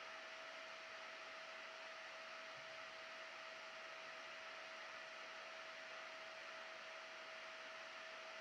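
Faint, steady airflow hiss of the cooling fan on the Peltier stack's heatsink, with a constant mid-pitched hum and no change throughout.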